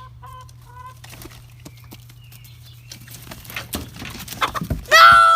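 Chickens clucking with a few short notes, then a flurry of wings flapping and scuffling as a hen is grabbed by hand, building up to a loud, high cry near the end.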